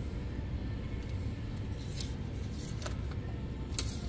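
Thin metal oil dipstick sliding and rattling in its tube, with a couple of sharp metallic clicks as it is seated and drawn out to check the oil level, over a steady low hum.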